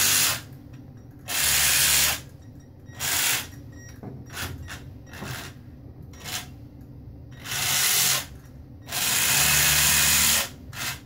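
Small electric motor of a 3D-printed radio-controlled model destroyer, driving its propeller shaft through 3D-printed gears, run in short throttle bursts. The longest run, about a second and a half, comes near the end.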